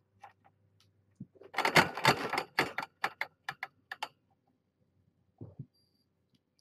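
Cats brushing and bumping against the floor camera right by the microphone. A burst of close rustling and knocking comes about a second and a half in, followed by a quick run of about six sharp clicks and a soft thump near the end.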